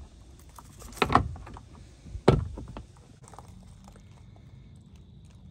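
Metal hand tools (pliers and a screwdriver) clattering and knocking in a box as they are rummaged through, with two sharp knocks about one and two seconds in. After about three seconds only faint low background remains.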